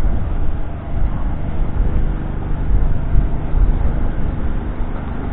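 A John Deere 6215R's 6.8-litre six-cylinder diesel engine idling steadily while the tractor stands still.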